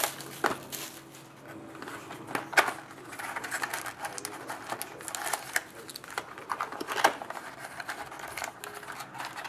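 Cardboard hobby box and foil-wrapped card packs being handled: scraping and rustling with scattered sharp taps and clicks, the loudest about two and a half seconds in and again at seven seconds.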